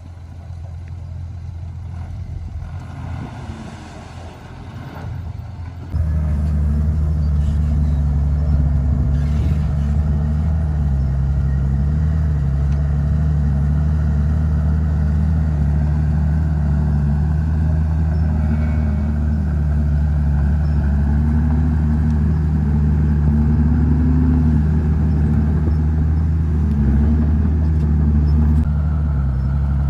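Heavy diesel engine running steadily, its pitch wavering slightly as the load changes. It grows louder over the first few seconds, then becomes abruptly much louder about six seconds in.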